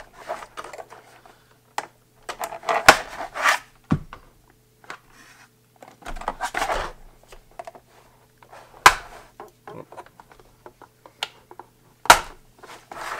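Clear plastic wrapping crinkling and rustling as it is pulled and cut off new cordless power tools with a pocket knife, with several sharp knocks as the tools are handled and set down on the workbench.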